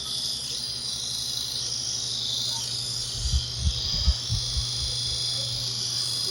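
A steady high-pitched chirring hiss in the background, with several soft low thumps about three to five seconds in.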